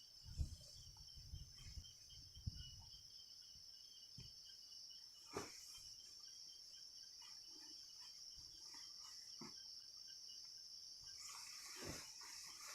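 A faint, steady high-pitched drone of insects, crickets or cicadas, with a fainter pulsing trill below it. A few soft low thumps come in the first seconds, and single sharp knocks come near the middle and near the end.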